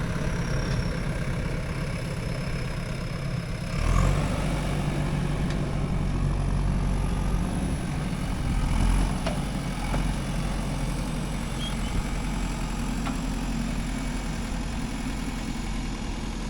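The diesel engine of a JCB 3DX backhoe loader running steadily under work. It revs up sharply about four seconds in and swells again around nine seconds, with a few faint knocks.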